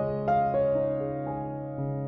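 Background music on a piano-like keyboard: single notes struck about every half second, each ringing out and fading.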